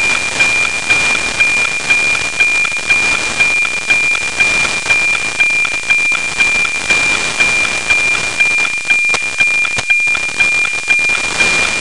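NOAA 19 weather satellite's APT signal, FM-demodulated from 137.1 MHz: a steady 2400 Hz tone ticking evenly about twice a second, once per scan line, under heavy static hiss from a weak, low-elevation pass.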